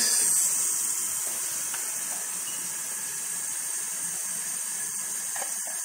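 Pot of water with rice and vegetables heating on an electric coil burner, giving a steady hiss.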